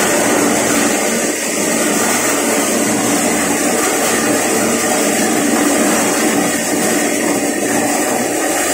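Platinum PLT-SRMS150 mini maize sheller, driven by a 1.5 HP single-phase electric motor, running steadily with an even, unbroken mechanical noise.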